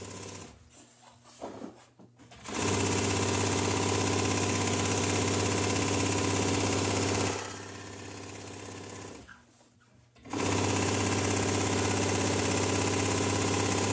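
Industrial sewing machine stitching sailcloth panels of a mainsail together: a steady machine run of about five seconds that drops lower, a short stop, then a second run of about three and a half seconds.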